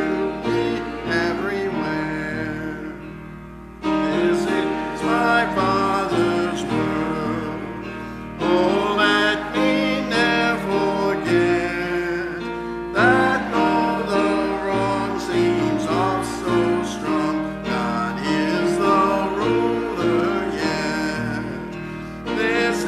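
Hymn music for congregational singing, with sustained chords in phrases that start afresh every four to five seconds.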